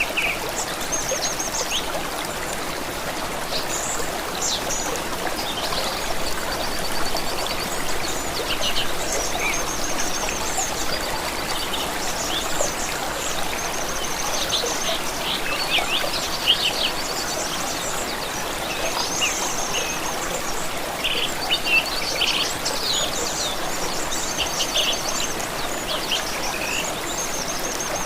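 Songbirds chirping and trilling, with many short calls and quick repeated notes, over the steady rush of a flowing stream.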